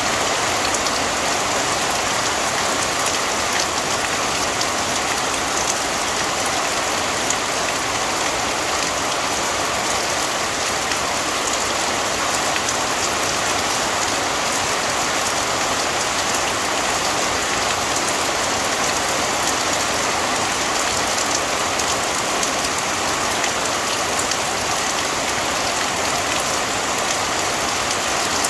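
Steady heavy rain falling on a surface, with a dense patter of individual drops.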